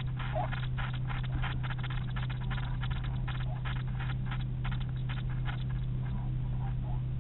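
Rapid, irregular scratching and clicking of a kingfisher moving and pecking about in its nest burrow, over a steady low hum.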